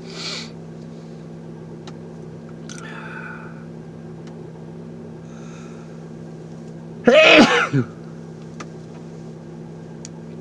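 A man sneezing once, loudly, about seven seconds in, one sneeze in a long fit of repeated sneezes. Fainter breaths come before it, over a steady low hum.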